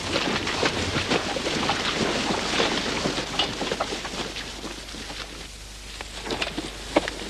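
Tall dry grass or reeds rustling and crackling as several people push through them, a dense mass of small snaps. It dies down about five seconds in, then a few sharp snaps follow, one loud one near the end.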